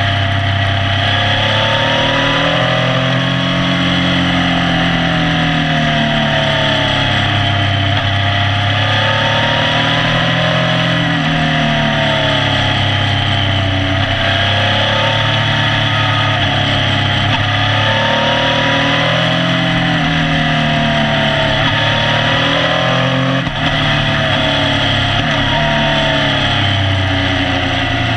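Motorcycle engine under way, its pitch rising and falling every few seconds as the throttle opens and closes through the bends, with steady wind and road noise. The level drops briefly about two-thirds of the way through.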